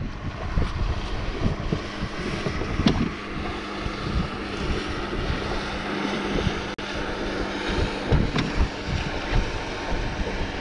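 Wind buffeting the microphone over choppy water, with a faint steady low drone of a boat engine underneath. A couple of short knocks, about three seconds in and again near the end.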